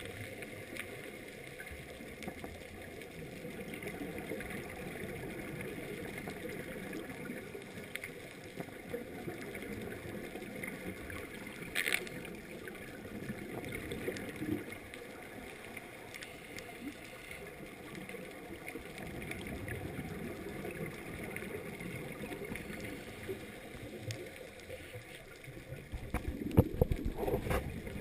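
Underwater ambience through a GoPro's waterproof housing during a scuba dive: a steady, muffled low rush of water. A sharp click comes about twelve seconds in, and near the end a louder crackling, bubbling burst of the diver's exhaled regulator bubbles.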